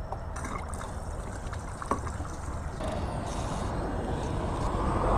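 Road traffic: a steady vehicle rumble that grows louder near the end, with a faint click about two seconds in.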